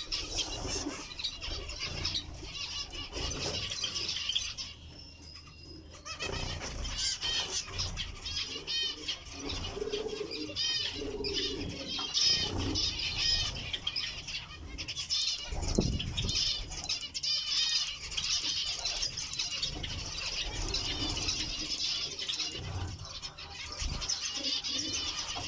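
Zebra finches calling in a continuous chatter of short, nasal beeping calls, with a brief lull about five seconds in and a low thump about sixteen seconds in.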